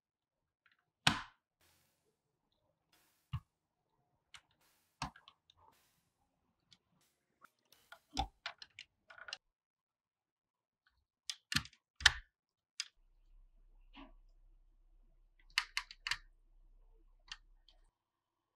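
Small parts of a diecast model truck clicking and tapping as they are fitted by hand and with pliers: a string of sharp, irregular clicks, the loudest about a second in and again about twelve seconds in.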